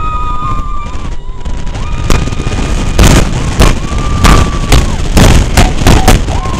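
Wind buffeting the microphone on an open Test Track ride vehicle running at speed on the outdoor loop: a steady heavy rumble that turns into repeated loud blasts from about two seconds in. A few held high-pitched tones sound over it.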